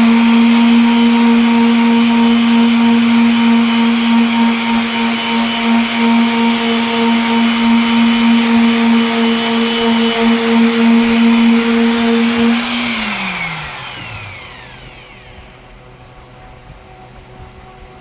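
Electric sander running steadily at speed while sanding a headlight lens, then switched off about thirteen seconds in, its motor winding down with a falling whine.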